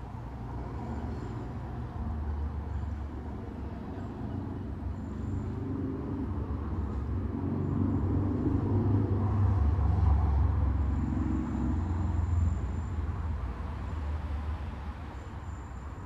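Road traffic passing through an intersection: a steady rumble of car engines and tyres that grows louder to its peak a little past the middle, as vehicles pass close, then fades.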